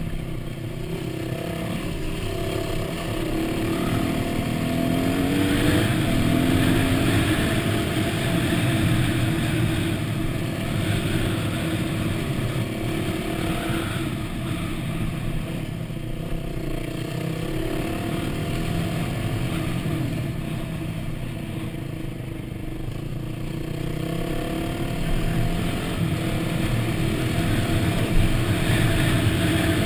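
Yamaha WR250 dirt bike engine running under way, its pitch rising and falling with the throttle, climbing about five seconds in. A short sharp knock comes near the end.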